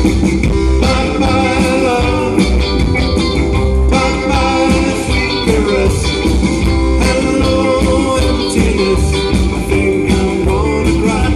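Live band playing amplified rock music through a PA: electric guitars over a drum kit, with a keyboard.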